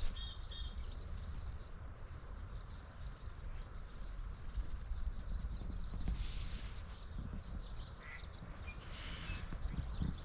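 Wetland bird ambience: small birds chirping and twittering continuously over a steady low rumble, with two short hissy rustles partway through.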